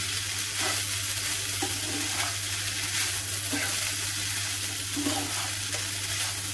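Slotted spatula stirring and scraping poha (flattened rice) with diced potato, onion and peanuts around a nonstick frying pan, over a steady frying sizzle.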